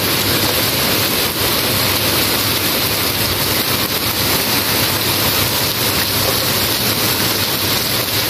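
Heavy rain pouring down steadily on a paved street and roofs, with runoff streaming off the eaves: a loud, even hiss that does not let up.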